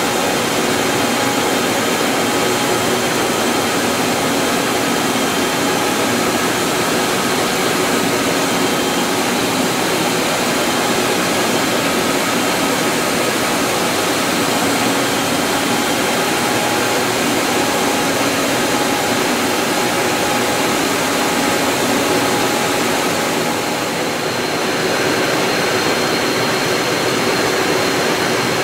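Web printing press running at speed: a loud, steady mechanical rush as the paper web feeds over the rollers, with faint steady tones in it.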